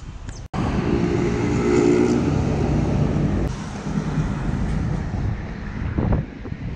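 Road traffic close by: a motor vehicle's engine hum over steady street noise, loudest in the first couple of seconds after a brief break in the sound.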